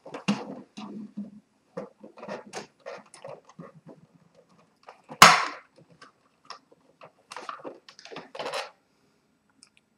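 Hands handling a plastic continuous-ink-system tank unit and its tubing: scattered light clicks and rustling, with one sharp knock about five seconds in.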